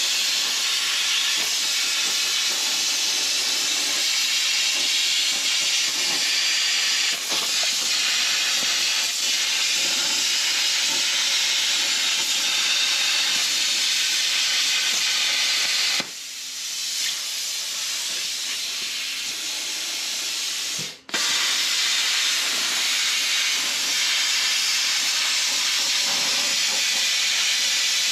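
Handheld plasma cutter with a drag tip, cutting a circle in a sheet-metal sign: a loud, steady hiss of air and arc. About 16 s in it drops to a quieter hiss for about five seconds, cuts out for a moment, then the full cutting hiss comes back.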